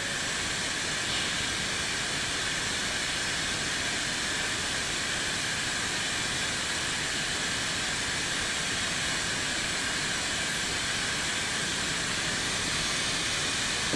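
Steady hiss of a quiet room's background noise boosted for listening, with a faint steady high whine.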